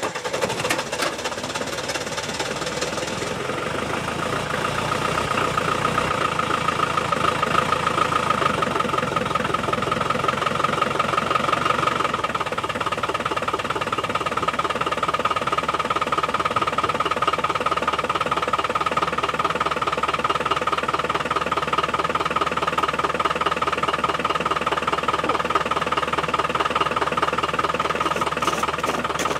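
Land Rover 300Tdi 2.5-litre four-cylinder turbodiesel, freshly rebuilt, idling steadily with a rapid even diesel knock just after a cold start at about minus 15 on the block heater and one glow-plug cycle. It runs a little louder over the first few seconds, then holds steady. The engine is still tight from its rebuild and has a bit of air in the fuel.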